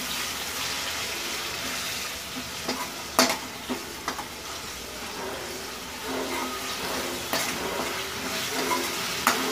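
Boiled boneless mutton pieces frying and sizzling in hot oil with onions in a metal wok, stirred with a steel spatula that clicks and scrapes against the pan a few times, mostly around three to four seconds in and once near the end.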